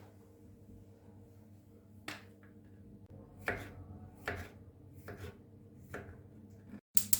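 Knife chopping on a cutting board: about five separate strokes roughly a second apart, then a quick run of taps near the end.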